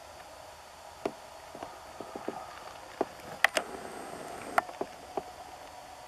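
A dozen or so irregular sharp clicks and knocks over a faint steady hiss, the loudest a close pair about three and a half seconds in.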